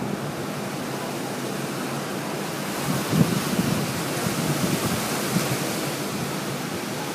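Strong, gusty wind from a tornadic thunderstorm rushing and buffeting a phone's microphone. It turns hissier about three seconds in.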